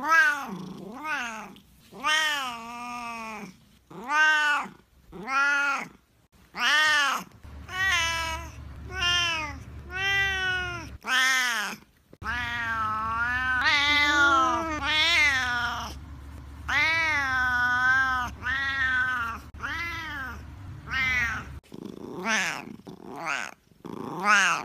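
Siamese cat meowing over and over, loud yowling calls that rise and fall in pitch, one after another with short gaps, several drawn out into longer wails.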